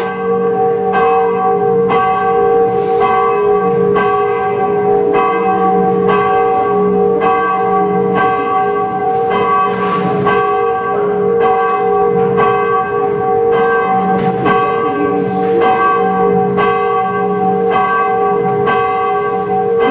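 Church bells ringing in a continuous peal, several bells sounding together, each renewed by a steady, regular run of strikes.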